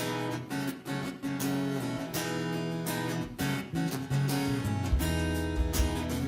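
Strummed acoustic guitar chords playing a slow song intro, with bass notes joining about five seconds in.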